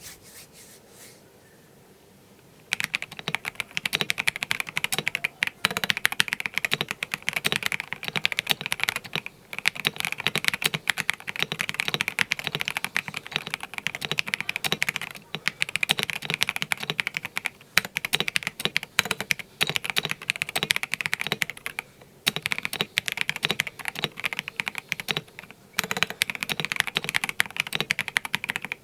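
Stock ZZANEST Elements 75XT mechanical keyboard with a polycarbonate plate, JWK Black linear switches and Akko keycaps being typed on fast and continuously, a dense stream of key clacks starting a few seconds in, broken by a few short pauses.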